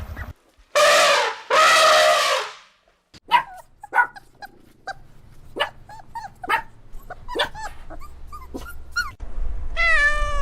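Dog vocalising: two long, loud calls, then a run of short, high yips and whimpers. Near the end a cat starts to meow.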